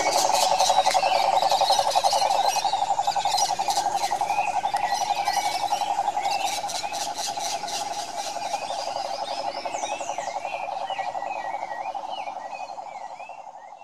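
Toads of the genus Rhinella calling: a continuous low trill of very fast pulses, with birds chirping over it. The trill fades out near the end.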